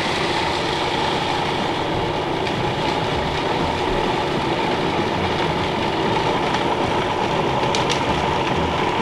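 Food processor running loudly and steadily, its blade grinding peanuts into peanut butter with a little vegetable oil added. A few light ticks come through near the end.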